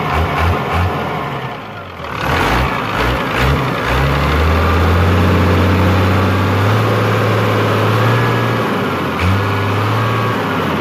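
Isuzu six-cylinder diesel engine running, its injection pump timing just advanced to cure a slight misfire. The sound pulses unevenly at first, swells about two seconds in and holds steady for several seconds before easing back near the end.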